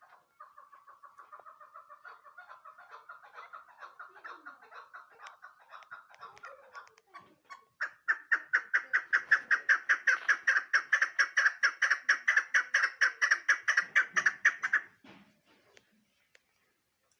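Female chukar partridge calling: a fast series of short clucking notes, quieter for the first seven seconds, then much louder at about six notes a second from about 8 s in, stopping about 15 s in.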